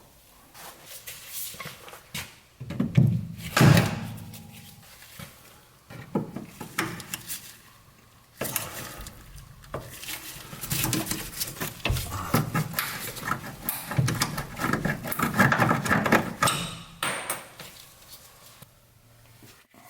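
Hand tools and metal brake-line parts being worked: irregular clicks, knocks and scraping. Two loud knocks come about three to four seconds in, followed later by a long stretch of scraping and rattling.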